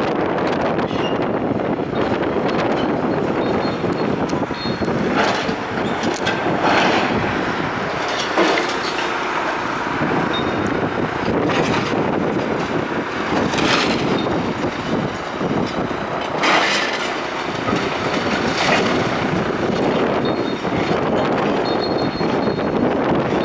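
Demolition machinery at work: a steady, loud mechanical din with several short, sharper scrapes or clanks of metal.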